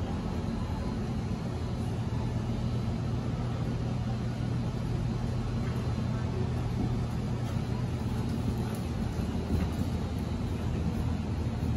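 Steady low hum and rumble, the background noise of a large indoor arena.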